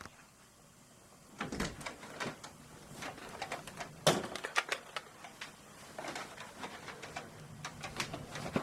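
Irregular clicks and knocks of things being handled at close range, the loudest about four seconds in.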